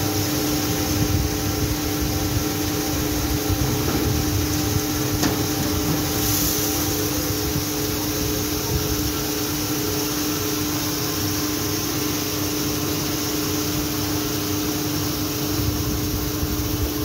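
A steady mechanical hum holding a constant low tone, with uneven wind rumble on the microphone.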